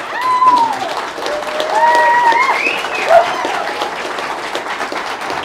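A crowd of guests applauding and cheering after the kiss, with a few whoops rising and falling over dense clapping in the first few seconds.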